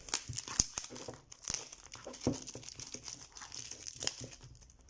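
Plastic wrapping crinkling in irregular crackles as it is pulled open by hand to unseal a box of face masks.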